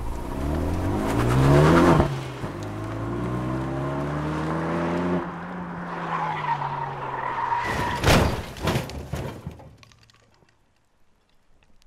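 A car engine revs up hard as the car accelerates past, drops back about two seconds in and runs on. Then comes a high squeal, and about eight seconds in two sharp knocks, before the sound dies away.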